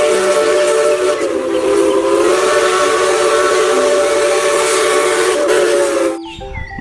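A steam locomotive's whistle blowing one long blast: several notes sounding together as a chord over a hiss of steam, cutting off suddenly about six seconds in.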